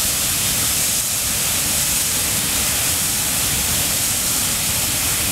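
Large structure fire burning: a loud, steady rushing hiss over an uneven low rumble.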